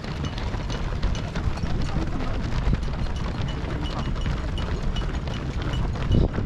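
Dense patter of many runners' footsteps on the road as a marathon field streams past, over a low rumble of wind on the microphone. A faint high beep repeats evenly throughout, and a louder thump comes near the end.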